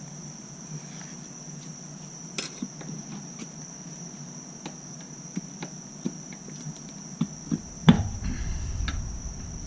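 Scattered light clicks and knocks of hands and tools working a dirt bike tire bead on its rim, with a sharp knock about 8 seconds in followed by a low rumble. A steady high chirring of crickets runs underneath.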